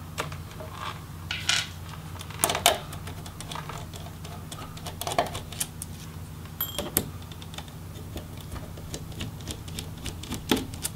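Scattered light clicks and taps of a small Phillips screwdriver and tiny screws on a laptop display assembly's plastic bezel, as the bezel screws are taken out, over a low steady hum.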